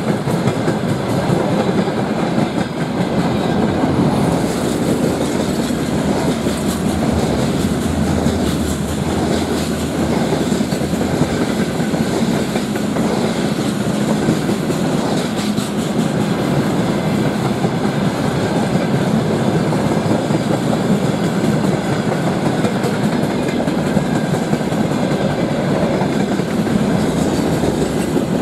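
Freight train wagons rolling past close by at speed: a steady loud rumble with the rapid clatter of wheels on the rails, as a string of tank cars gives way to covered wagons.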